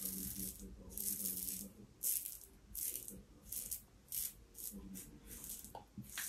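A safety razor, a Yaqi cap on a Fatip closed-comb base with an Astra Stainless blade, rasping through stubble in short strokes, about nine of them, each a brief crackly scrape. The shaver calls the noise somewhat unsettling, though the blade is cutting decently.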